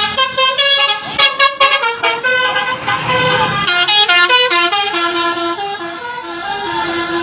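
Basuri telolet multi-tone horn on a tour bus playing a melody: quick stepped horn notes that change pitch several times a second, settling from about four seconds in into a repeating run of short notes.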